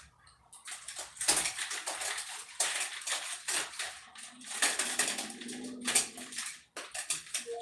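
Clattering and rustling of small objects being handled, in uneven bursts.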